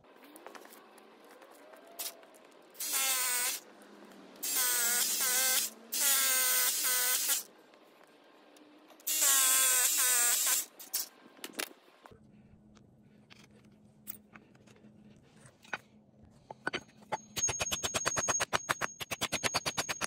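Cordless hammer drill boring through an HDPE strip into an asphalt driveway in four bursts, each a few seconds long with a whining motor. Near the end, a hammer taps quickly and evenly on countersunk concrete anchors, with a thin ringing tone.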